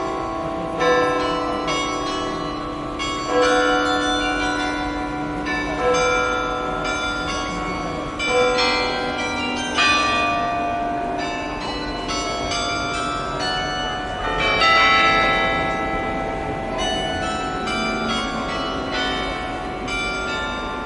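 Several large church bells of Notre-Dame Cathedral, Luxembourg, pealing together: overlapping strikes of different pitches, each ringing on long after it is struck. The loudest strokes come about every two and a half seconds.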